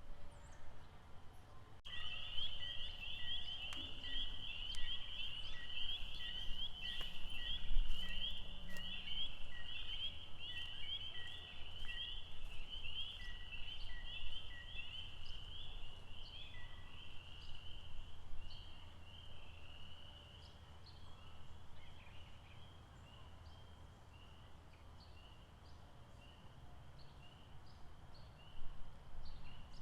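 Lakeside chorus of calling animals: a dense run of rapid, high-pitched pulsing calls starts abruptly about two seconds in and thins out in the second half. A second caller repeats a short lower note about twice a second for a while. A low steady rumble runs underneath.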